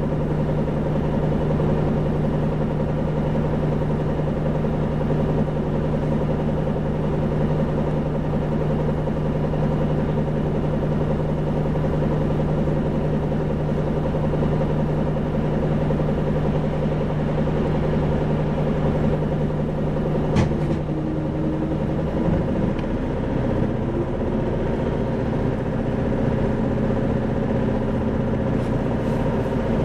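Isuzu 2PG-LV290N3 city bus's diesel engine idling steadily at a stop for about twenty seconds. A sharp click comes just before the engine note changes and starts to rise as the bus pulls away.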